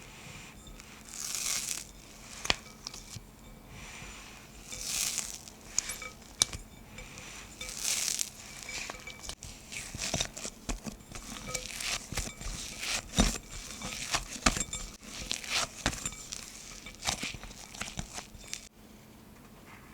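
Crinkly wrapping material being handled, rustling and crinkling in irregular bursts with occasional light taps and clicks, stopping shortly before the end.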